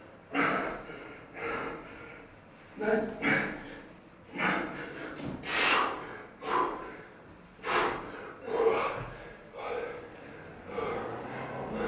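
Hard breathing under physical strain: a run of forceful exhalations and gasps, about one a second, from men holding and climbing around each other's bodies.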